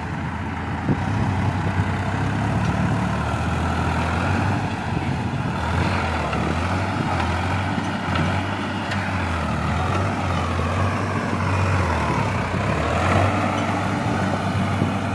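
New Holland 3600 tractor's three-cylinder diesel engine running hard under heavy load, pulling a loaded trailer up a slope. The engine note wavers up and down as it labours.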